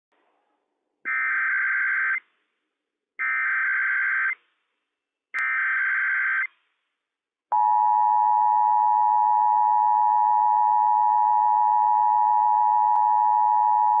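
Emergency Alert System Required Monthly Test on NOAA Weather Radio. It opens with three screechy digital SAME header bursts, each about a second long and a second apart. About seven and a half seconds in, a loud steady attention tone starts and holds.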